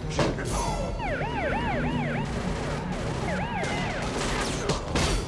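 Police siren yelping in quick rising-and-falling sweeps from about a second in until about four seconds in, over a steady low rumble. Sharp bangs come just after the start and again near the end.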